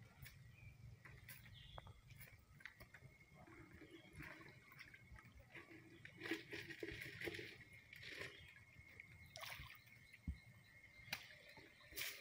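Faint sloshing and splashing of shallow pond water as a fine-mesh fishing net is hauled and bunched up by hand, coming in short irregular bursts that are busiest around the middle and again near the end.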